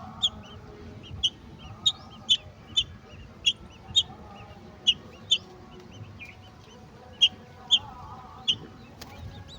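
A bird's short, sharp high chirps, about a dozen, spaced irregularly and often in pairs.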